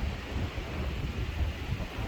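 Strong wind buffeting the microphone: an uneven low rumble in gusts, with a hiss of wind above it.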